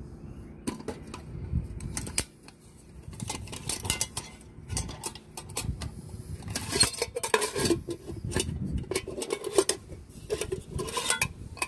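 Swedish military mess kit pots and lids, stainless steel and aluminium, clattering and clinking as they are handled and set down on a glass tabletop. A quick, irregular run of metal knocks and clicks, busiest in the second half.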